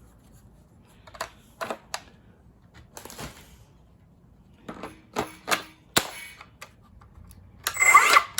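Scattered plastic clicks and knocks from handling a Milwaukee M18 Fuel circular saw, then near the end its brushless motor spins up with no blade fitted: a loud, rising whine.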